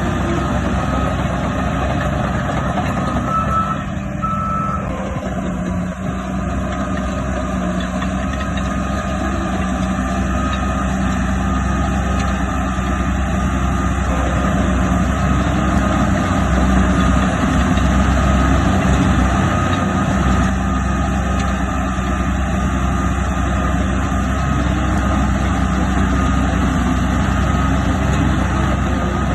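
Diesel engine of heavy earthmoving machinery running steadily under a reversing alarm that beeps at one pitch.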